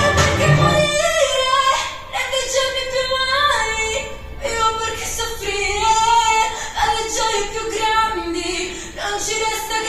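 Italian pop song with a female lead vocal. The heavy bass drops away about a second in, leaving the voice over a lighter backing.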